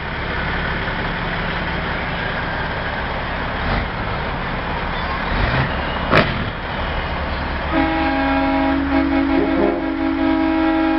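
Heavy truck engines rumbling past at low speed, with a sharp click about six seconds in. About eight seconds in, a truck air horn starts a loud two-note blast that wavers slightly and holds for several seconds.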